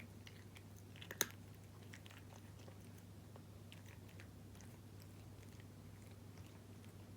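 A cat crunching dry kibble: a few sharp crunches about a second in, then fainter scattered chewing crunches, over a steady low hum.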